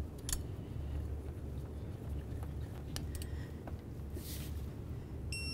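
Bolts being threaded by hand into a water pump pulley and a ratchet fitted onto them, heard as a few faint light metal clicks over a low steady hum. A short high beep comes near the end.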